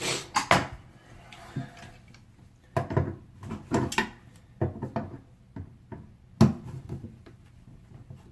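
Irregular clicks and knocks of hand tools and metal parts on a sink faucet as its stuck valve is forced loose and pulled out, the sharpest knock about six and a half seconds in.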